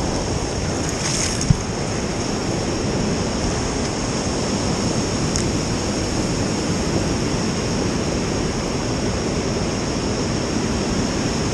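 Steady rush of river water running over rapids, close to the microphone, with one sharp click about a second and a half in.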